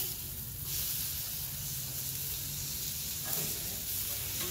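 Burger patties and buns sizzling steadily on a Blackstone flat-top griddle, the sizzle flaring up briefly at the start as a patty is turned with a metal spatula.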